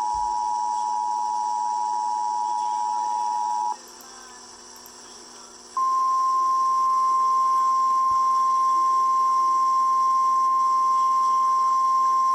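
Emergency Alert System two-tone attention signal, a steady dual tone that cuts off about four seconds in. After a pause of about two seconds, the single steady 1050 Hz NOAA Weather Radio warning alarm tone starts and carries on, heralding a tornado warning.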